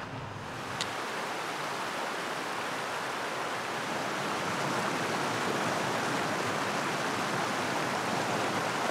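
A steady rushing noise that grows a little louder from about four seconds in, with a single sharp click just under a second in.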